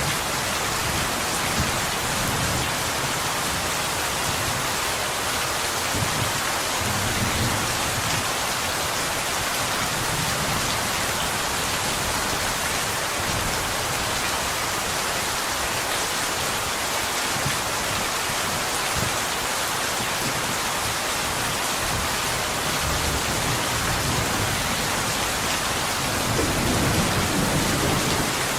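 Steady rain falling on window glass, an even hiss of drops with no breaks, and a low rumble coming and going beneath it that swells slightly near the end.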